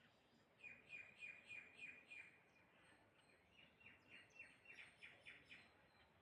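Faint bird chirping: a quick series of short, high notes, about three or four a second.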